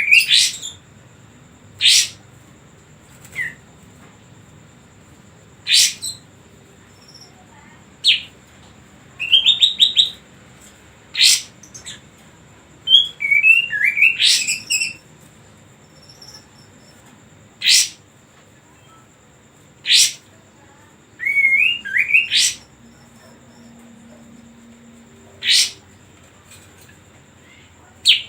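Kapas tembak songbird calling: sharp, loud single notes every two to three seconds, mixed with short warbling phrases. A faint steady high tone runs underneath.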